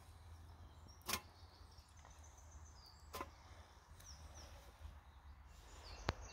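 Three sharp single drips or taps, a couple of seconds apart, the last the loudest, over faint bird chirps and a low background rumble of wet woodland.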